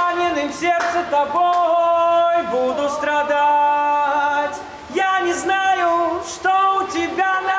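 A love song sung unaccompanied, led by a man's voice, with long held notes.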